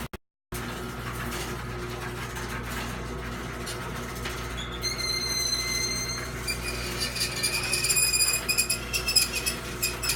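Chamberlain half-horsepower chain-drive garage door opener running as it closes the door: a steady motor hum. About five seconds in, high-pitched squeaking joins it, from the door as it moves.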